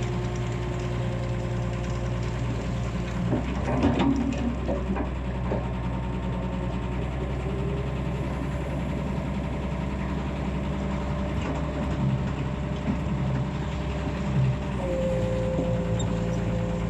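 Excavator engine running steadily, with a short burst of knocking and clatter about four seconds in.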